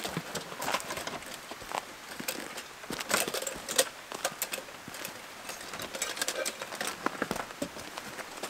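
Footsteps crunching on snow and the rustle of a jacket and backpack, with sharper knocks and clicks, loudest about three seconds in, as the wooden dugout door is shut and its latch handled.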